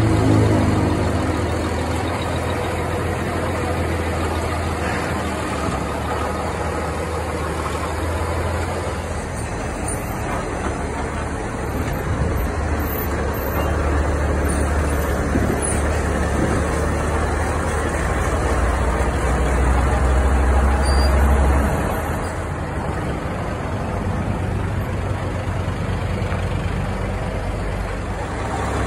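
A heavy diesel vehicle engine running steadily, a loud low rumble that grows heavier partway through and eases back about two-thirds of the way in.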